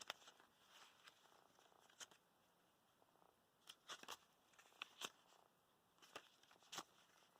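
Near silence broken by faint, scattered paper rustles and soft taps, about six brief ones, as tags and papers in a handmade junk journal are handled.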